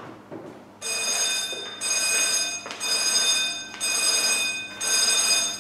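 An electronic bell or ringer sounding five times, each ring just under a second long, about one a second with short gaps between them.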